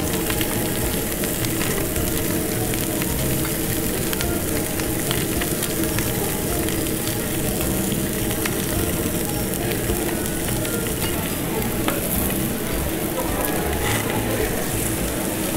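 Pork slices and vegetables sizzling on a hot tabletop Korean barbecue grill plate: a steady frying hiss with fine crackles.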